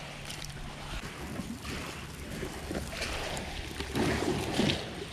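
A small wood campfire crackling with a few sharp pops over a steady rush of river water. From about four seconds in there is a louder burst of rustling and shaking as salt is sprinkled from a shaker onto a skewered fish.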